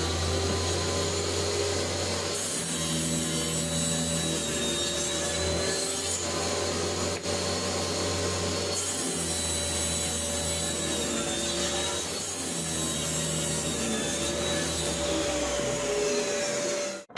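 Table saw running steadily with a low hum, crosscutting plywood on a sled. A harsher cutting hiss comes in three times as the blade goes through the plywood: from about two seconds in, again around six seconds, and near the end.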